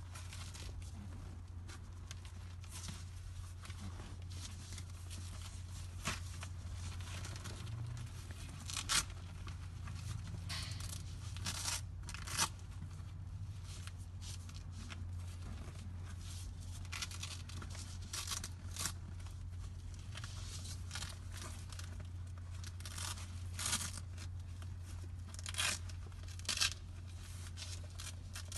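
Hook-and-loop (Velcro) strips on a PVC seat cover being pulled apart and pressed together: short rips scattered throughout, several of them louder, with rustling of the vinyl between them, over a steady low hum.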